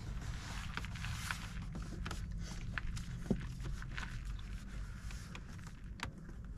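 Rubber door weather stripping being pressed by hand onto the metal flange of a truck's door opening: scattered soft clicks and rustles, one sharper click about three seconds in, over a steady low hum.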